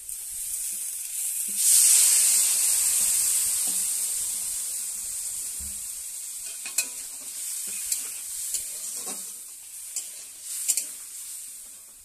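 Baby potatoes and spices frying in hot oil in an aluminium wok. The sizzling jumps sharply about two seconds in as liquid hits the hot pan, then slowly dies down. A few clinks and scrapes of the spatula against the pan come in the second half.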